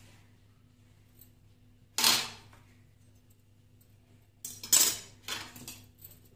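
An icing spatula scraping and clinking against a dish as buttercream is spread on a cake layer: one sharp scrape about two seconds in, then several shorter scrapes in quick succession near the end.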